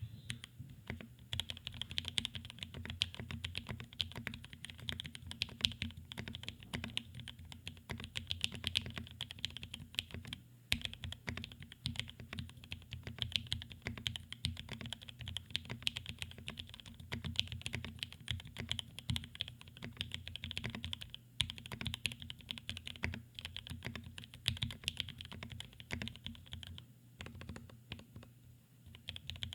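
Fast continuous typing on a custom mechanical keyboard: a NEO Keys Palette G67 with an acrylic case, a carbon fibre plate, lubed and filmed Gateron Black Ink v2 switches and GMK keycaps. The keystrokes run in a dense stream with a couple of short pauses and thin out near the end.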